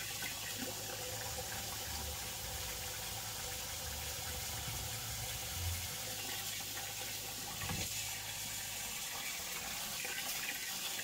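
Kitchen faucet running into a sink as rice is rinsed in a plastic rice strainer bowl, the water splashing through the strainer onto the sink bottom. One soft knock about eight seconds in.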